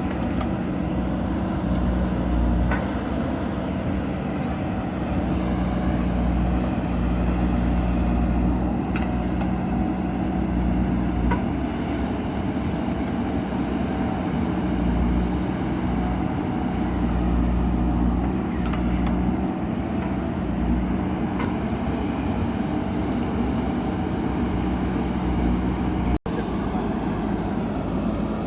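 JCB backhoe loader's diesel engine running steadily at working revs, with a few faint clicks. The sound cuts out for an instant near the end.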